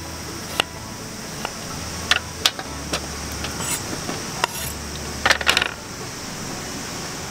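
Kitchen knife slicing an onion on a wooden cutting board, a few sharp chops, then a quick cluster of metallic clinks about five seconds in as the slices are swept off the board into a steel tray. A steady high insect drone runs underneath.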